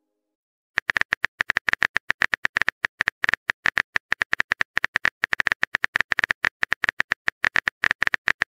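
Rapid, irregular run of sharp, identical clicks, the typing-sound effect of a texting-story chat app. It starts about a second in and keeps going.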